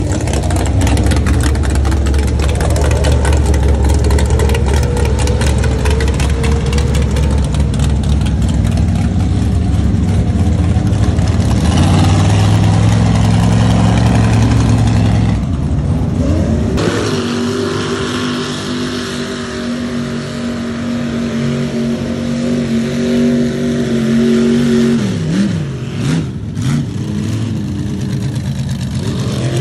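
Mega truck's supercharged engine revving hard as it churns through a mud pit. About halfway through the sound changes to a steadier engine pitch, with a couple of quick drops and rises in revs near the end.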